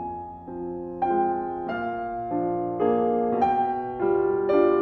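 Solo piano music, with a new chord struck roughly every half second.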